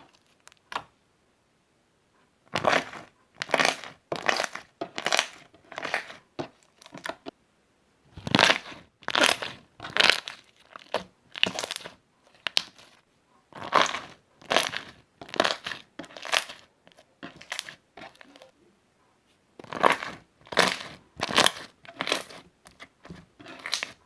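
Slime being squeezed and pressed by hand, a squish about once a second in runs of four or five squeezes, with short pauses between the runs. The first couple of seconds are nearly silent.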